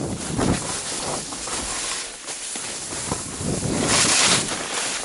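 Skis hissing and scraping over snow through a series of turns, mixed with wind rushing over the microphone. The loudest swish comes about four seconds in.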